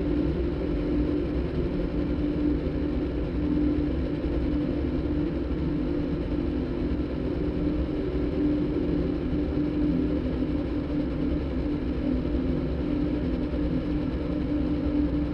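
Electronic soundtrack made by cross-synthesizing a recorded motorbike engine with a đàn bầu (Vietnamese monochord) concert recording: a steady engine-like drone with one strong held tone over a low rumble.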